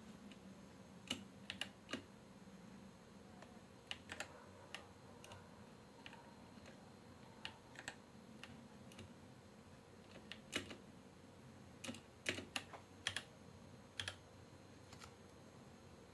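Womier K66 mechanical keyboard keys being pressed: scattered, irregular key clicks, some in quick clusters of two or three.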